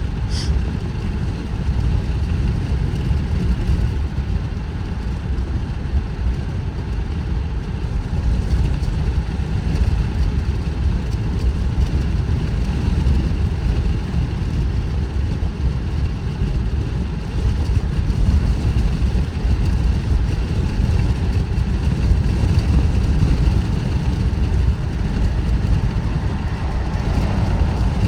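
Car driving steadily at about 35 mph: a continuous low rumble of road and engine noise from the moving vehicle.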